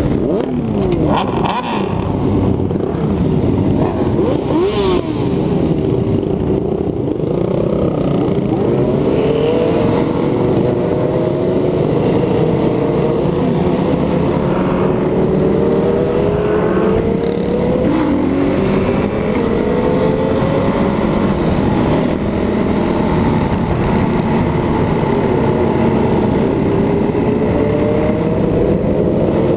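Motorcycle engine heard from the rider's own bike while riding in a group, its pitch rising and falling again and again as the throttle opens and closes and the gears change, over steady wind and road noise.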